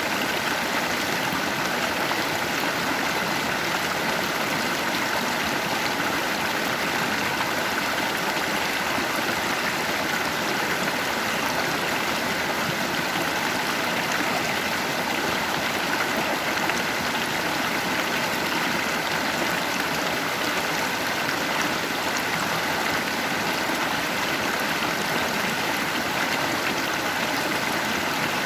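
Stream water flowing steadily over rocks, a constant rushing and splashing without pause.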